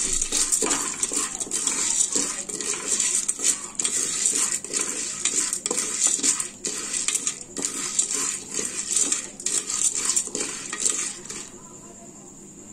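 Wooden spatula stirring dry popcorn kernels in oil around the bottom of an aluminium pressure cooker: a dense, scratchy rattle of kernels scraping against the metal pot. It stops about a second before the end.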